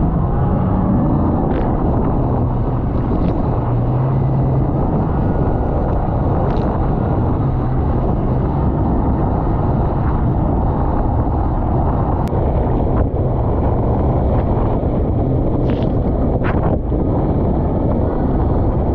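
Mercury Pro XS 225 V8 outboard running hard on a RIB, its pitch stepping up and down a few times as the throttle and waves change, under heavy wind rush on the microphone and water noise from the hull and spray. A few short sharp knocks stand out.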